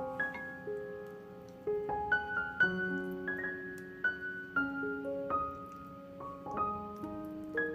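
Background piano music: gentle notes and chords played at an unhurried pace.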